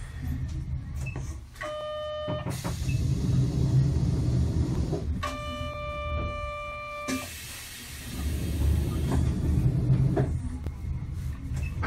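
Inside a Sapporo streetcar: the car's low rumble runs throughout, and a steady buzzer tone sounds twice, first briefly and then for about two seconds, each time followed by a hiss.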